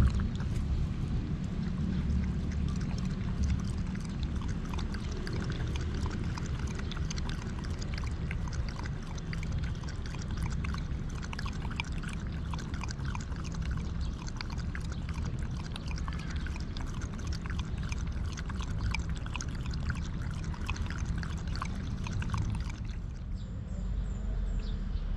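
Dog lapping water from a shallow plastic bowl: quick, continuous wet laps and splashes, stopping near the end.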